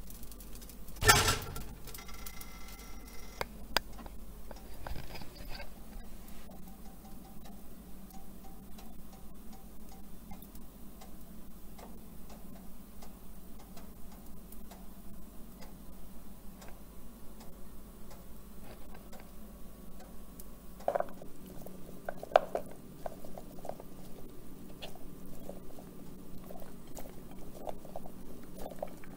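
Kitchen sounds: a sharp clatter about a second in as a pancake is set down on a plate from a metal spatula, then scattered faint ticks over a low steady hum, and a run of small soft taps near the end as berries are dropped onto the pancakes.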